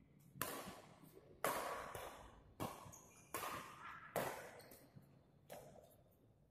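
Badminton rackets striking a shuttlecock back and forth in a rally: about six sharp hits, each ringing on briefly in the hall's echo.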